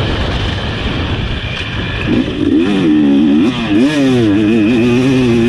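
Husqvarna TC250 single-cylinder two-stroke motocross engine running under riding load, heard from on the bike. At first it is buried in a rushing noise; about two seconds in its note comes through clearly, rising and falling with the throttle, then holds a steady pitch near the end.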